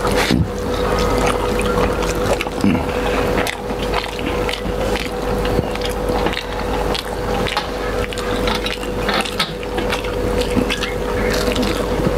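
Close-miked eating by hand: wet chewing and lip-smacking clicks, with fingers mixing rice and curry on steel plates, over a steady hum.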